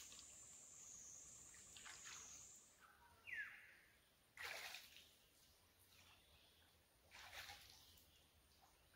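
Near silence outdoors with a faint, steady high-pitched insect buzz that stops about three seconds in. Then comes a short falling chirp, followed by two brief soft rustles.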